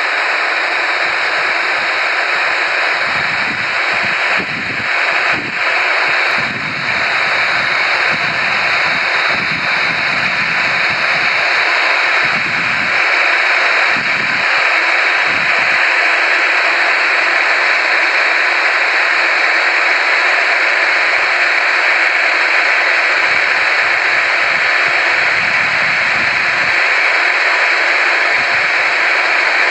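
Steady rushing jet-engine noise of airliners at the airfield, with gusts of wind buffeting the microphone in the first half.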